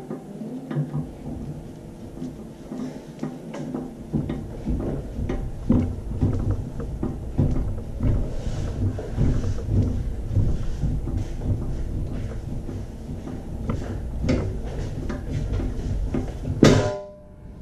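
Irregular clicks and knocks of a gloved hand handling a small geared motor and its bracket on a stainless steel filter lid, over a low rumble. A louder knock near the end, then the sound drops away abruptly.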